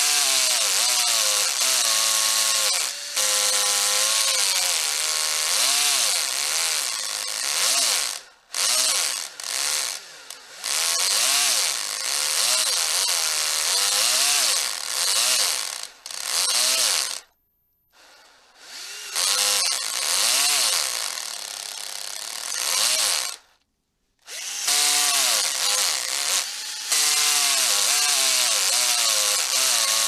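Electric drill boring into wood. Its motor pitch rises and falls repeatedly, and it stops briefly three times: about eight seconds in, for about a second near the middle, and again around twenty-four seconds.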